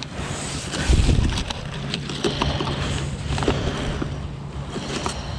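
Rustling and clicking of fishing gear being handled in a tackle bag, over a steady low motor hum that sets in about a second in.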